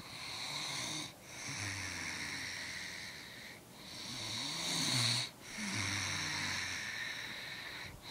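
Someone snoring: long, hissy breaths with a low rumble under several of them, broken by short pauses between breaths.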